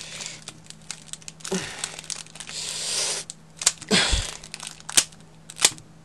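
Nature Valley mixed nut bar's foil wrapper crinkling and tearing as it is worked open by hand, with a longer crinkle about two to three seconds in, several sharp clicks and a dull thump about four seconds in.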